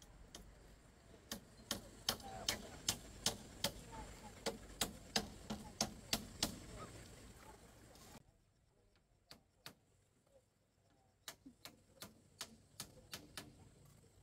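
Repeated sharp knocks, about two to three a second, in two runs with a short pause between them; the steady background hiss drops away partway through.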